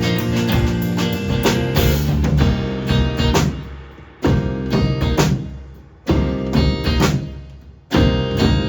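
A live band playing, with guitar and drums. About four seconds in, the band strikes three accented hits together, about two seconds apart, each ringing out and fading before the next; the full band comes back in near the end.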